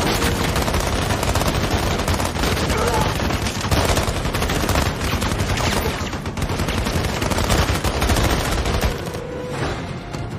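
Heavy automatic gunfire: many rapid shots overlapping in a sustained volley. It thins out about nine seconds in as music takes over.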